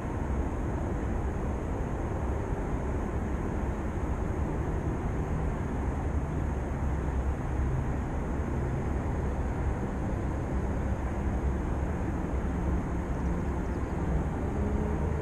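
Steady low outdoor rumble with no distinct events, with a faint steady high note above it.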